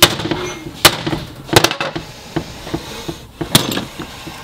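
Hammer blows on a bearing driver, driving a tapered roller carrier bearing down onto a Subaru R180 differential carrier. There are four sharp strikes spaced irregularly, one of them a quick double blow, with light clatter in between.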